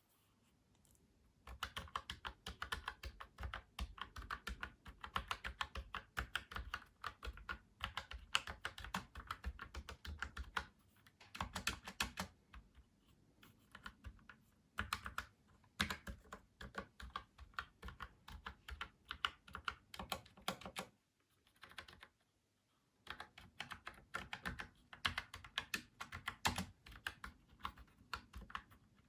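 Typing on a Logitech MX Mechanical Mini mechanical keyboard: rapid keystroke clicks in bursts, starting about a second and a half in, with a few short pauses and a longer break about 21 seconds in.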